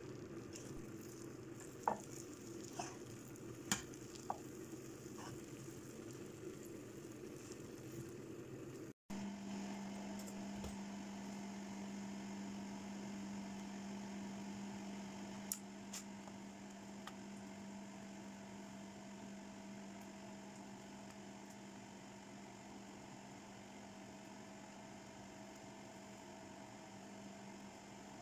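Faint sizzling of cooked glutinous rice in a frying pan on the stove, with a few light scrapes and taps of a wooden spatula stirring it. About nine seconds in it cuts to a steady electrical hum, with a couple of faint clicks as lumpia wrappers are handled.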